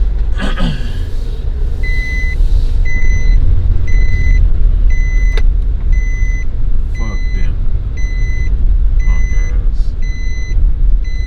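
Car engine and road rumble heard from inside a car. From about two seconds in, the car's electronic warning chime beeps steadily, a little more than once a second.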